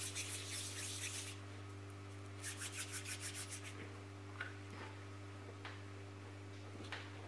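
Hands rubbing together, a faint scratchy rustle of fingers and palms, stopping about a second in, then a second short spell of rubbing about two and a half seconds in. A few faint light taps follow, over a steady low hum.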